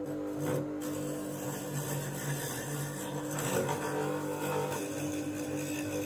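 Bench grinder motor running steadily with a wood-turning chisel scraping the spinning laminated wooden wheel on its shaft, truing it round.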